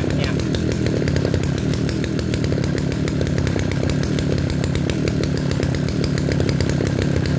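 Kioritz RMB343D brushcutter's 34 cc single-cylinder two-stroke engine, with a 37 mm bore, running at a steady speed.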